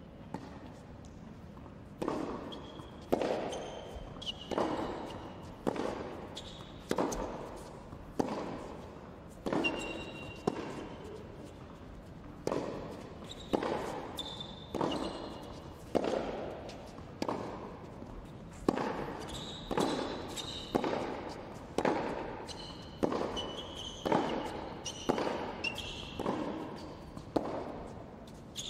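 Tennis rally on an indoor hard court: tennis balls struck by rackets and bouncing, about one sharp knock a second starting some two seconds in, each echoing in the large hall, with short shoe squeaks between the shots.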